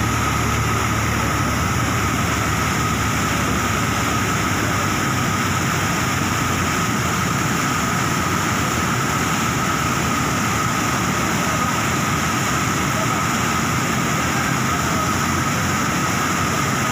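Water rushing steadily down a concrete spillway in a heavy, frothing torrent, an even, unbroken noise with a steady high tone running beneath it.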